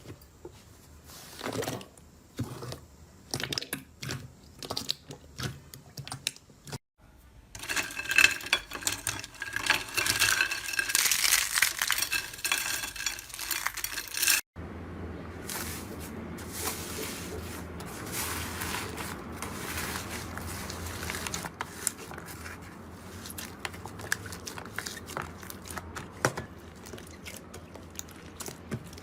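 Slime being handled. First come separate sticky pops and clicks, then a stretch of loud, dense crackling, then a softer, steady crackle with occasional pops.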